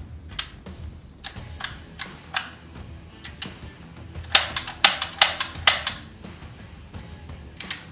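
4.5 mm (.177) CO2 AR15-style air rifle firing sharp shots. A few scattered single shots come first, then a quick string of about eight louder shots a little after the middle. Low background music runs underneath.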